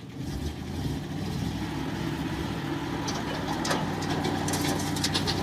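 A vehicle engine running steadily at a low, even pitch, with scattered clicks and knocks from about three seconds in.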